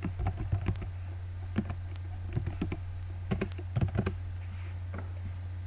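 Keystrokes on a computer keyboard, typed in short irregular runs with brief pauses, over a steady low hum.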